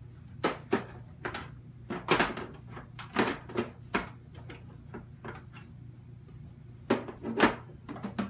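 Plastic clicks and knocks from the Hoover WindTunnel MAX bagged upright's housing as a part is pushed and fitted back into place: a dozen or so sharp clacks, in clusters, over a low steady hum.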